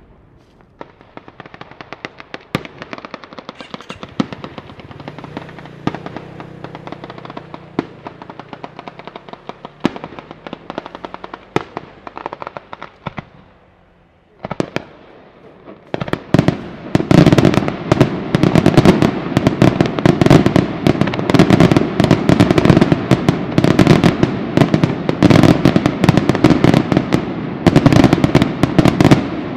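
Daytime fireworks battery of firecrackers and bangs in the Sanseverese style. It starts as a dense run of rapid cracks, dips briefly about 14 seconds in, then from about 16 seconds becomes a much louder, continuous barrage of bangs.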